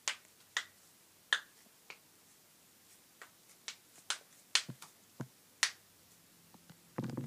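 Finger joints (knuckles) being clicked by hand: about a dozen short, sharp pops at uneven intervals.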